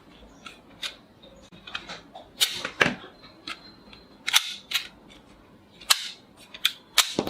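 Toy Bulldog revolver being worked by hand: a run of irregular sharp plastic clicks and snaps from its hammer, trigger and cylinder, the loudest a couple of seconds in, about four seconds in, and twice near the end.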